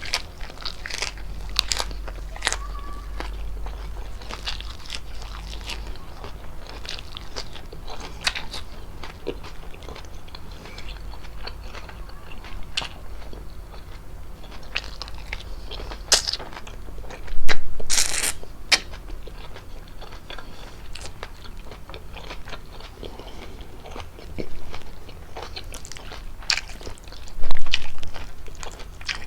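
Close-miked eating of fettuccine with chicken: chewing and biting with many small wet mouth clicks. Twice there is a much louder burst, once just past the middle and once near the end.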